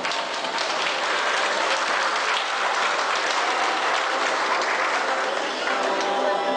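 A crowd applauding for several seconds. Near the end, music begins under it.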